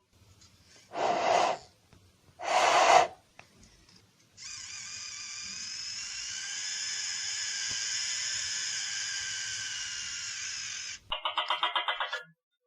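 Gecko calls: two short breathy hisses, then a long steady high-pitched whistling sound lasting about six seconds, and near the end a fast run of about ten clicking chirps.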